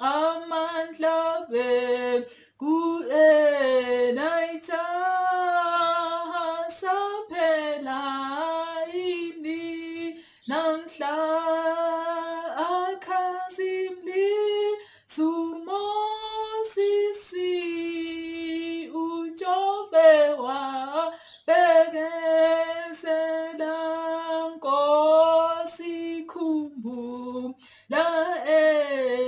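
A woman singing a hymn solo, unaccompanied, in long held notes with short breaths between phrases.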